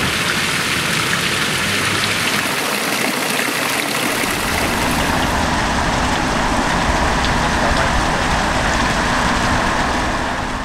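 Steady splashing of fountain water over a low rumble of city traffic, fading out near the end.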